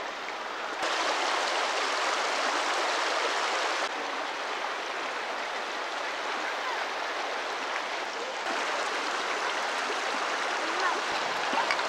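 Shallow rocky mountain creek running: a steady rush of water over stones. Its loudness jumps up about a second in and drops again at about four and about eight seconds.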